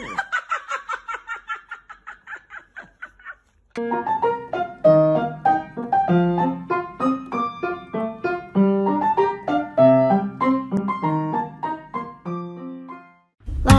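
Solo piano background music playing a gentle melody over chords, starting about four seconds in. Before it, a rapid pulsing high-pitched sound fades away over the first three seconds.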